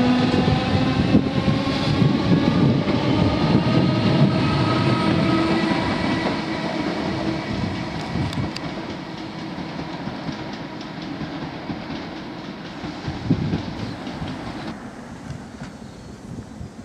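Class 315 electric multiple unit pulling away, its traction motors whining and rising in pitch as it accelerates, with wheels clattering over the rails. The sound fades as the train draws away, then drops suddenly near the end to quieter station background with some wind.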